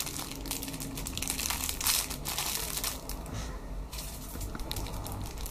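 Clear plastic bags around squishy toys crinkling as they are handled: an irregular run of crackles, loudest about two seconds in and dropping away a little past three seconds.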